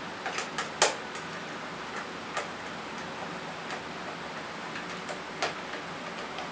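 Small screwdriver clicking and scraping on the screws and the hard plastic base of a basic corded telephone as its back-cover screws are undone. The clicks are irregular, with the sharpest one about a second in.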